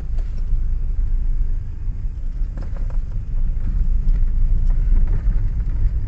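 Steady low rumble of a Ford Lynx on the move, heard from inside the cabin: engine and road noise at slow driving speed.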